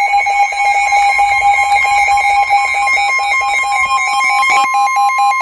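NOAA Weather Radio's 1050 Hz warning alarm tone, a loud steady single tone announcing that a warning is about to be broadcast. A second, slightly lower alert tone beeps rapidly over it.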